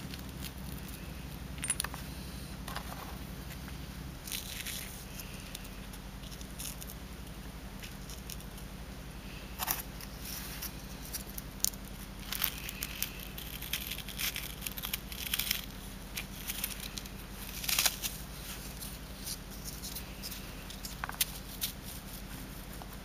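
Cuttlefish-bone casting mould being worked and broken apart by fingers: scattered soft crackles, scrapes and crumbling clicks, several louder ones in the second half, over a steady low hum.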